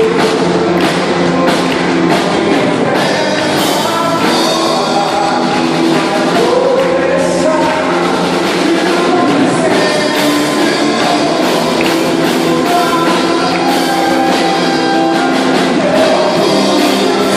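Band playing a song with a lead singer over a steady drum beat.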